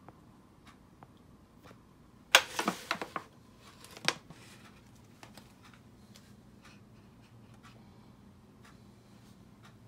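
A thin aluminium foil pan crinkling and rustling as it is handled, in a burst of about a second starting two seconds in, followed by a single sharp click a second later. Faint scattered ticks otherwise.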